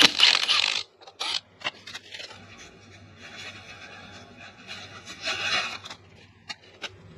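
Cordless impact wrench running in a short burst as it spins off the 12 mm axle hub nuts, then a few small metallic clicks and a brief rustle of a plastic zip-lock bag as the nuts are bagged.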